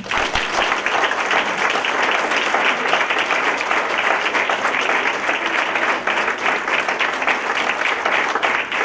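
Audience applauding: many people clapping at once, starting suddenly and holding steady.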